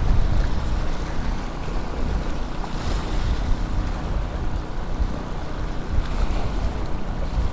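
Small waves washing and splashing against the stone blocks of a jetty, with wind rumbling on the microphone.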